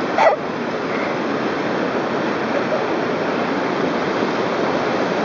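River rapids rushing steadily, whitewater pouring over and around boulders. A brief voice sounds right at the start.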